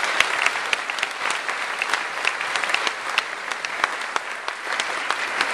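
Audience applauding: many people clapping together, with single claps close by standing out sharply.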